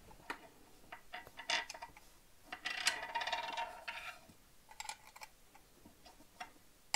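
Light metallic clicks and taps from handling the bottom plate of a Mamiya/Sekor 500 DTL camera as its battery cover is put back on. About three seconds in there is a denser scraping rattle lasting about a second and a half.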